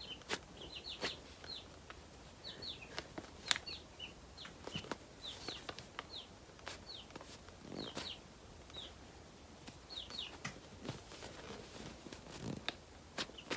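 Baby chicks peeping: short, high, falling cheeps in quick twos and threes, repeated every second or so, with scattered faint clicks and rustles in between.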